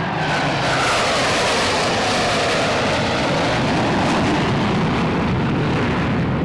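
Loud jet engine noise from four F/A-18 Hornets in a low formation pass, with a high whine that falls in pitch as they go by.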